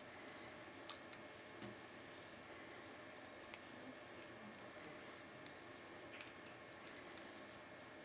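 Small, sharp metal clicks and ticks of a lock pick and tension tool working the pins inside a 60 mm cross-key padlock, irregular and spaced out, with one louder click about three and a half seconds in, over faint hiss.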